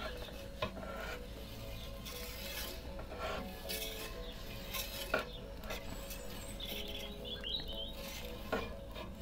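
Metal pizza turning peel scraping and clicking against the baking stone and the metal lip of a gas-fired Ooni Karu pizza oven as the pizza is turned, with short rasps about a second apart.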